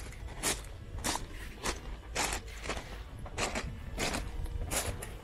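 Footsteps on loose beach pebbles, a crunch with each step at a steady walking pace of nearly two steps a second.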